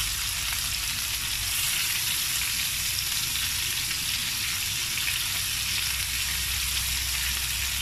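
Pork, garlic and freshly added sliced red onion sizzling steadily in oil in a stainless steel pan.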